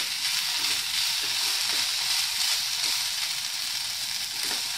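Strips of capsicum, carrot and broccoli sizzling in hot oil in a kadai on a gas stove, a steady even hiss.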